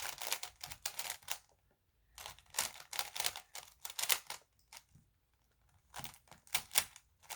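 Plastic Rubik's cube being turned in quick bursts of clicking turns, three runs of clatter with short pauses between.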